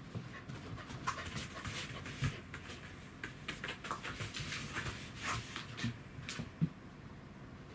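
A Pembroke Welsh corgi with degenerative myelopathy walking on floor mats without its wheelchair, panting, its paws scuffing and tapping irregularly on the floor.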